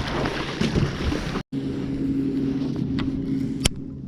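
Irregular knocking and rustling, then after an abrupt cut a steady low drone of a boat motor running, with one sharp click near the end.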